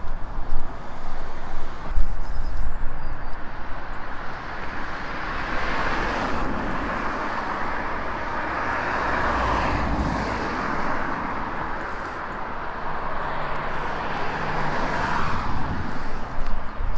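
Road traffic going past: the rush of car tyres swells and fades as vehicles pass, loudest about midway and again shortly before the end.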